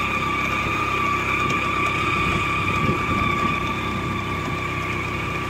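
A motor vehicle's engine running steadily as it climbs a hill road, with a steady high whine over a low rumble.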